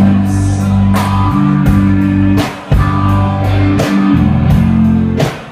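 Rock band playing an instrumental passage: guitars and bass holding chords under drum strikes, with a brief drop in sound about halfway through and again at the end.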